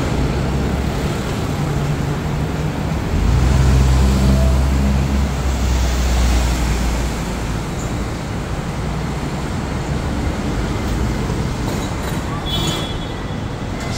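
Street traffic noise with a box truck's engine running as it passes close by, loudest from about three to seven seconds in, over a steady hiss of road noise.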